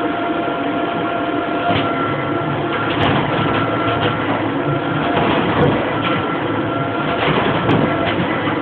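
Low-pressure electric blower running with a steady whine and rush of air, powering a homemade wooden water-displacement buoyancy engine. Its valves and ratcheting crankshaft add sharp knocks and clatter at irregular intervals.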